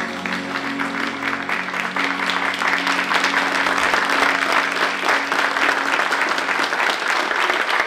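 Theatre audience applauding, the clapping swelling a couple of seconds in, over the held notes of the routine's music, which fade out near the end.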